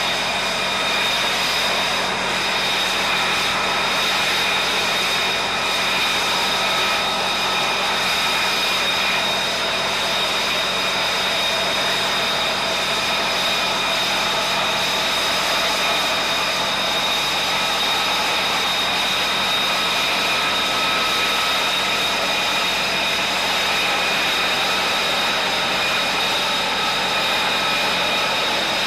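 F-35B Lightning II's jet engine running steadily at low power as the jet taxis on the flight deck: a constant rushing noise with a steady high whine on top.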